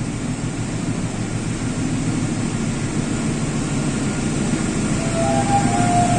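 Diesel locomotive of a passenger train approaching the platform: a steady low rumble that grows gradually louder. A few short high tones come in near the end.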